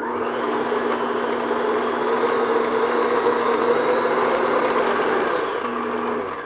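Electric stand mixer running at medium-high speed, its flat paddle beater creaming butter and sugar in a glass bowl: a steady motor hum with a whirring churn. It stops shortly before the end.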